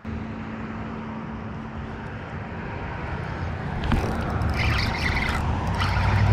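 Steady low rumble of road traffic that grows louder, with crackling on the microphone from about four seconds in.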